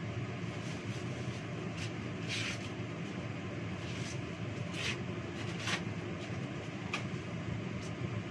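Dishes and utensils being washed at a kitchen sink: several short clinks and knocks scattered through, over a steady low rumble.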